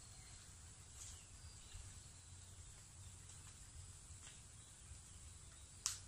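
Near silence in open country: a faint, steady, high-pitched insect drone over a low rumble, with a few faint ticks and one sharp click just before the end.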